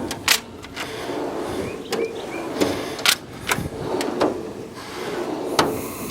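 Drawers of a Snap-on tool chest being slid along their runners and shut, with a series of sharp metal clunks and rolling rumble in between.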